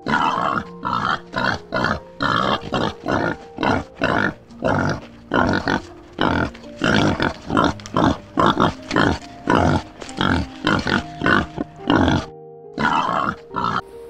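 Warthogs grunting in a rapid run of short, harsh grunts, about two a second, over background music.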